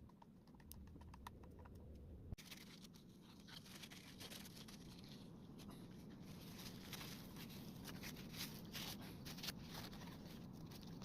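Faint, irregular clicking and scratching, the small clicks coming thicker after about two seconds.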